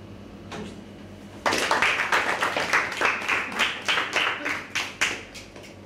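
A small group clapping by hand for about three and a half seconds, starting about a second and a half in: applause rewarding a correct quiz answer.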